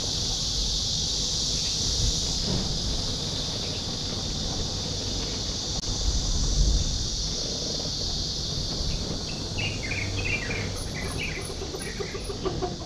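A steady, high, hissing buzz of insects runs over a low rumble. In the last few seconds a bird chirps repeatedly in quick short calls.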